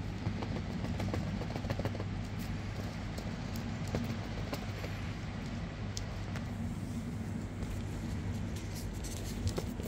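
Small clicks, taps and crinkles of a smartphone's cardboard retail box and its plastic shrink-wrap being handled, over a steady low hum.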